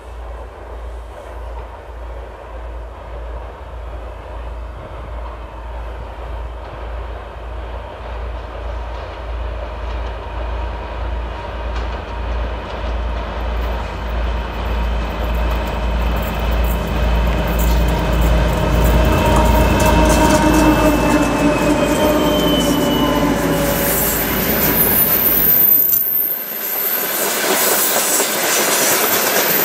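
2M62 twin-section diesel locomotive's two-stroke V12 engines throbbing as it approaches with a train of tank cars, growing louder, their tones sliding down in pitch as it passes. After about 26 seconds the engine sound drops away and the passing tank wagons take over: rhythmic wheel clatter on the rails with a high wheel squeal.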